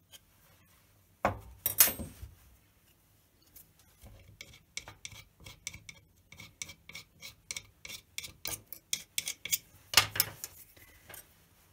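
A thin metal sculpting tool clicking and scraping quickly against a hard model as it trims plasticine in the model's coin slot, several ringing clicks a second. Two knocks come about a second in, as the model is set down on the wooden workbench, and a louder knock follows near the end.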